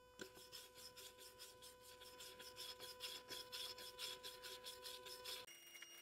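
Brass wire brush scrubbing lightly over a cast iron dumbbell in quick, even back-and-forth strokes, faint, stopping a little before the end. It is working off persistent rust after an oxalic acid soak, with light pressure so as not to strip the original paint.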